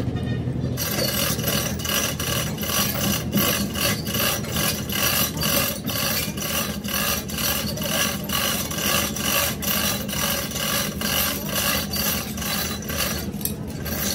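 Rhythmic scraping strokes of a hand tool worked back and forth, about three a second, starting about a second in, over a steady low hum.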